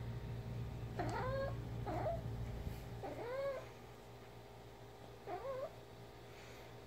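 Domestic cat giving four short calls, each rising then falling in pitch, the first three about a second apart and the last after a longer pause.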